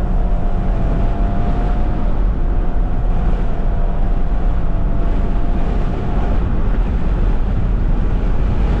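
Vehicle driving fast with loud road and wind noise, the wind buffeting the microphone. A faint steady whine runs through it and stops about six seconds in.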